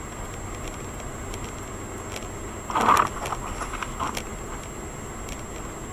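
Steady road and engine noise heard inside a car driving on a snowy road. About three seconds in there is a brief loud sound, followed by a few quick short ones.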